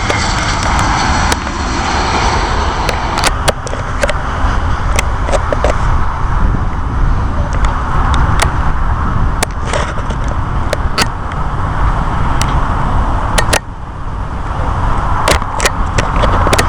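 Jet airliner engine noise that fades from a whine into a steady rumble and hiss. Wind buffets the microphone, and brief sharp clicks are scattered throughout.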